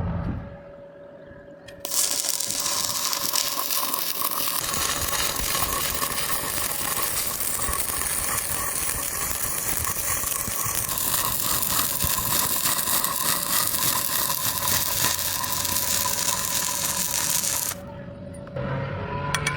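Electric welding arc running: a steady crackling hiss that strikes up abruptly about two seconds in and cuts off abruptly near the end, after about sixteen seconds.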